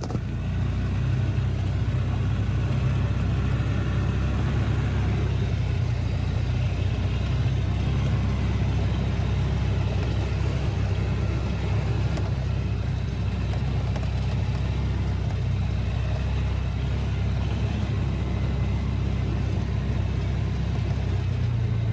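Side-by-side UTV engine running steadily with a constant low drone while the machine is driven.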